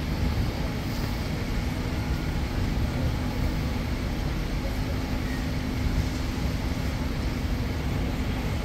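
Town-street traffic: a steady engine hum from buses and cars in the road over an even wash of road noise.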